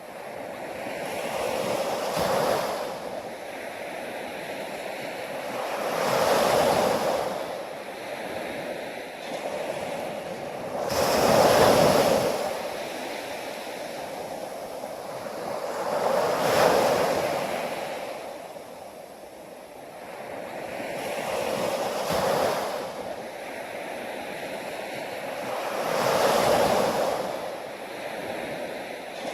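Ocean surf: waves break and wash up one after another, a swell of noise about every five seconds, with a steady hiss of water between them.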